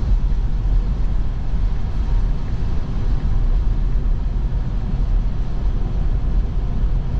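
Steady low road and tyre rumble inside a moving Tesla's cabin as it drives on snowy roads, with no engine sound over it.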